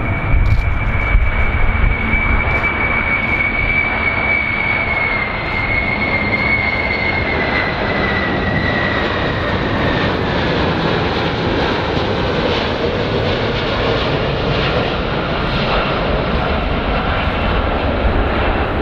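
Boeing 747 jet airliner flying low on landing approach, its four turbofan engines giving a steady rumbling noise. Over the top runs a high whine that slowly falls in pitch over the first ten seconds, then fades to a fainter, lower whine.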